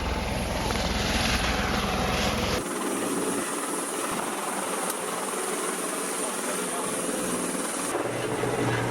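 Helicopter rotor and engine noise, a steady heavy drone. Its character changes abruptly about two and a half seconds in and again near the end.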